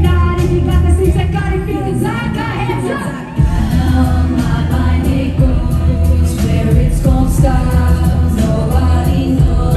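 Live hip-hop music through a loud PA: a heavy bass beat with vocals over it. The bass drops out a little over two seconds in and slams back in suddenly about a second later.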